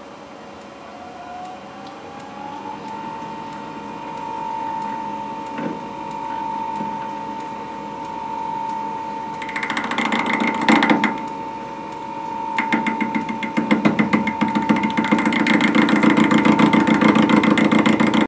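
South Bend 10K metal lathe run through a VFD: a motor whine rises in pitch over the first few seconds as the spindle comes up to speed, then holds steady. About nine seconds in, the turning tool starts its first cut on the bar with a loud, rapid rattling scrape; it breaks off for a moment and then resumes, louder toward the end.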